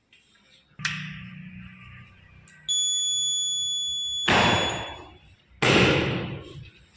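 Arduino smoke-alarm buzzer sounding one steady high-pitched beep for about a second and a half, starting nearly three seconds in, the alarm signalling that smoke has been detected. It follows a click near the first second and is followed by two loud rushing bursts of noise.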